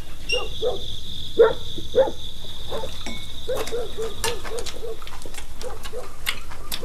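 Short animal calls, sparse at first, then a quick run of about four a second from about halfway, over a steady high-pitched tone that fades out about two-thirds through. Light clicks of bowls and chopsticks come in the second half.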